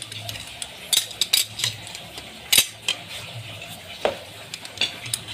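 Irregular light metallic clinks and knocks as metal picture-frame strips are handled and fitted into a red corner clamp.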